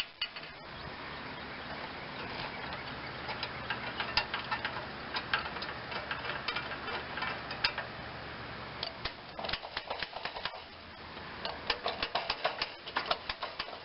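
Ratchet wrench clicking in irregular runs while backing out the starter mounting bolts, over a steady hiss.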